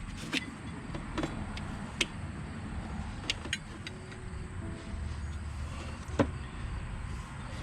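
Scattered clicks and light knocks of hand tools and parts as a new drive belt is worked onto an ATV's CVT clutches. A low rumble comes in for a second or so about halfway through.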